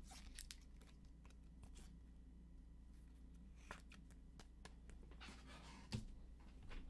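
Faint handling of trading cards and foil pack wrappers: scattered light clicks and a short rustle about five seconds in, over a faint steady hum.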